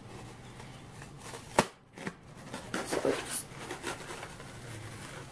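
Scissors snipping through a melamine foam sponge (Magic Eraser) in a series of short crisp cuts, with a sharp click about a second and a half in.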